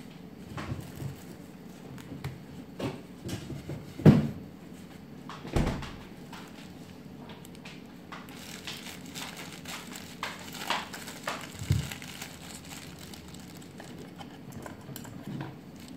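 Refrigerator door and kitchen items being handled: scattered knocks and clicks, the loudest a thump about four seconds in and another about a second and a half later, then a run of light clicks and taps.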